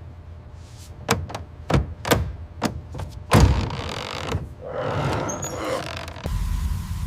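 A series of about five sharp knocks, then a rough scraping noise; about six seconds in, a steady low rumble with a faint steady whine starts abruptly.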